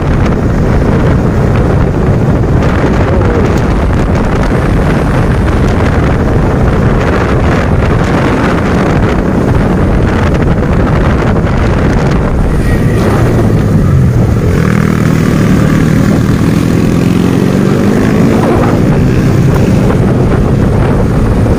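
Motorcycle ridden at speed on a road: heavy wind buffeting on the microphone over the engine and tyre noise. From about two-thirds of the way in, the engine note climbs steadily as the bike accelerates.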